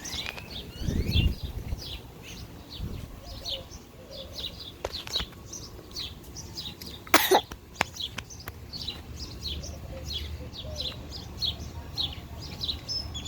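Small birds chirping over and over in short high calls. A low thump comes about a second in and a single sharp click about seven seconds in.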